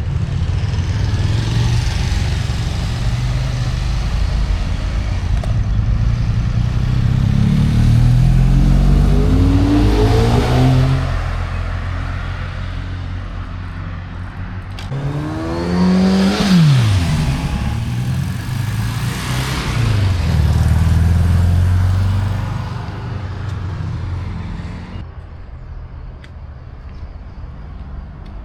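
Motor vehicles passing on a road: one engine rising in pitch as it speeds up about a third of the way in, then another whose pitch falls sharply as it goes by past the middle, over a steady rumble that eases off near the end.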